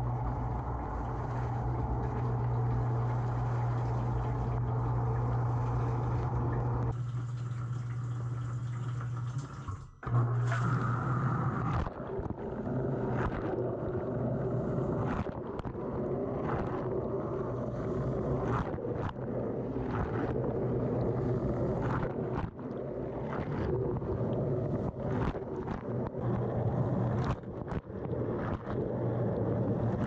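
Dishwasher wash pump running with a steady low hum while spray jets pelt water against the rack and the waterproof camera housing inside the tub. The hum cuts out briefly about ten seconds in, then comes back with sharp splashes striking the housing.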